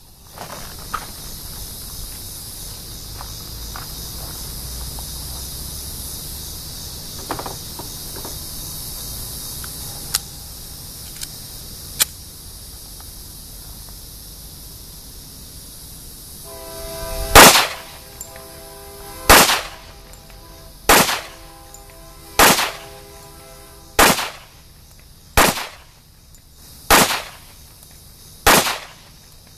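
Springfield XD45 semi-automatic pistol in .45 ACP firing a slow string of single shots, about one every second and a half, beginning a little past halfway. About eight sharp reports, each with a short echoing tail; before them only a few faint clicks.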